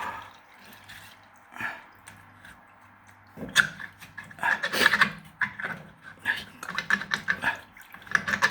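Water from a washing machine dripping and splashing into a container: scattered drops at first, then quick, irregular drips from about three and a half seconds in.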